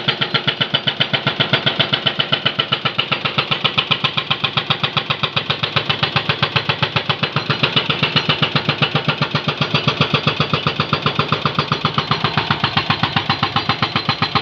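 Hydraulic breaker on a Jonyang JY623E excavator hammering road pavement in a steady rapid rhythm, about five to six blows a second.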